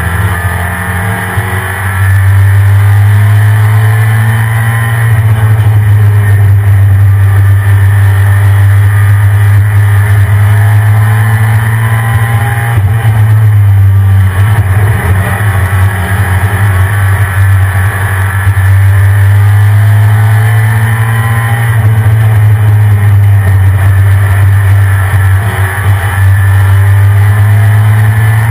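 1993 Ford F-150 Lightning's 5.8-litre V8 pulling on the move, its engine note rising and falling slowly several times over a heavy, steady low rumble.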